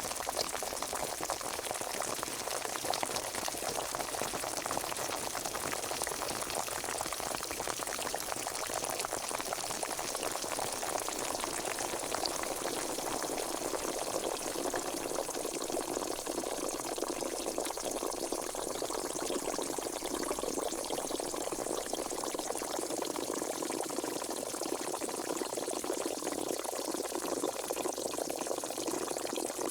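Pot of water at a rolling boil: dense, steady bubbling and popping.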